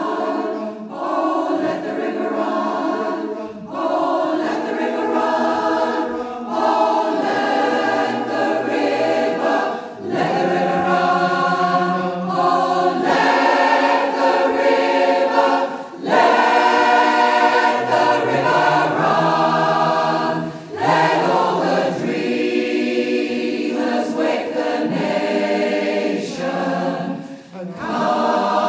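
A choir singing in phrases with short breaks between them.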